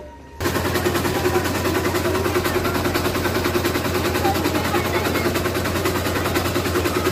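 Three-wheeler auto-rickshaw (tempo) engine running at idle: a rapid, even clatter that starts suddenly about half a second in.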